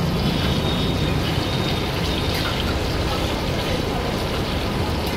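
Battered green chillies and fritters deep-frying in a kadai of hot oil, a steady sizzle, with a steady low rumble underneath.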